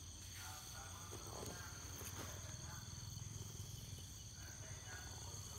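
Steady chorus of crickets or other insects trilling at a constant high pitch, with a low steady hum underneath and faint distant voices.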